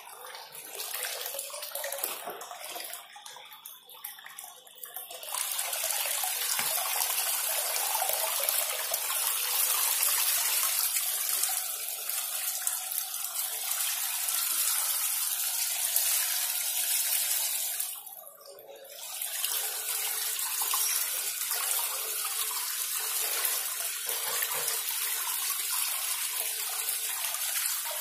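Water forced through a homemade PVC fountain nozzle by a 775-motor pump, spraying and splashing onto the pond surface. The splashing is patchy for the first few seconds, then becomes a steady rush, dropping away for about a second roughly two-thirds of the way through.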